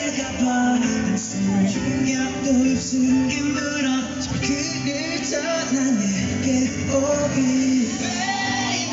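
Live pop concert music over a large festival PA: a male singer's voice over the band's backing, heard from within the audience.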